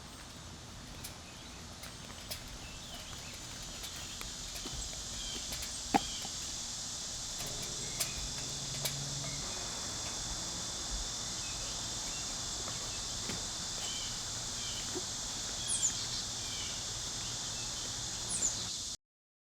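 Steady high-pitched insect chorus that swells over the first few seconds, with a few short bird chirps and sharp clicks over it; it cuts off suddenly near the end.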